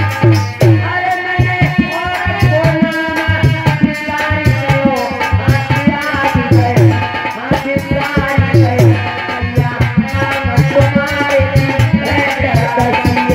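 Indian folk devotional music: a hand drum beats a quick, steady rhythm with jingling rattle percussion, under a melody line that bends up and down in pitch.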